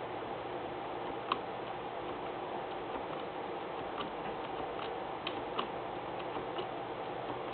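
Room tone: a steady hiss with a few faint, irregularly spaced light clicks.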